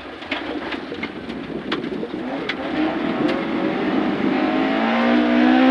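Rally car's engine heard inside the cabin, accelerating hard out of a corner, its note climbing steadily and growing louder through the second half, with sharp ticks and knocks from the car's underside earlier on.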